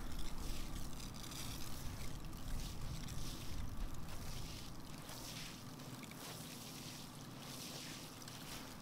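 Outdoor wind rumbling on the microphone, easing about halfway through, over a steady hiss.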